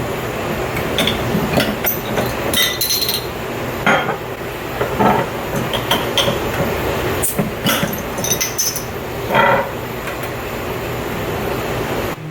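Restaurant dining ambience: cutlery and dishes clinking with frequent short, sharp clicks over a steady background hubbub.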